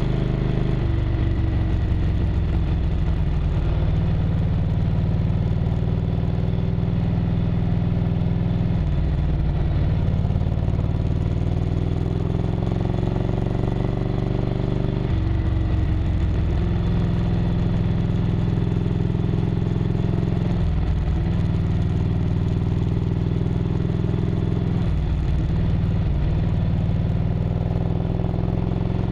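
1998 Harley-Davidson Road Glide's Evolution V-twin engine running under way on a winding road, recorded close up from the bike. The engine note shifts pitch several times as the throttle and gears change through the curves.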